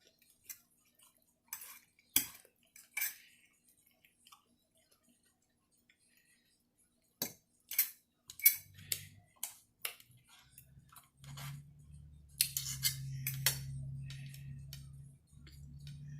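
Fork or spoon clinking and scraping against a plate or bowl: scattered sharp clicks, the loudest about 8 seconds in. A low steady hum joins in about halfway through and runs on under the clinks.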